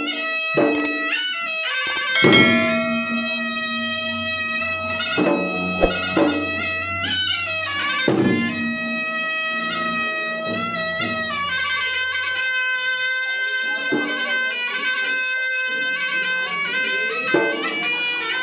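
Traditional Makassar gendang ensemble: a nasal double-reed shawm (pui'-pui') plays a continuous melody of long held notes that bend and slide in pitch. Gendang drum strokes come in now and then, the strongest about two seconds in.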